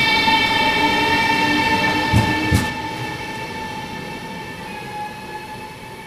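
SBB ETR 610 Cisalpino electric high-speed train running past and away: a steady high electric whine with several overtones. Two wheel clacks over a rail joint come about two seconds in, then the sound fades as the train moves off.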